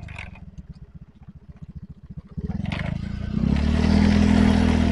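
Motorcycle engine slowing to a low idle, its separate firing strokes audible, then picking up about two and a half seconds in and revving up as the bike accelerates, loudest near the end.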